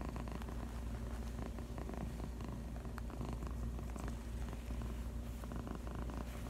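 Tuxedo cat purring steadily, a continuous low rumble of quick even pulses.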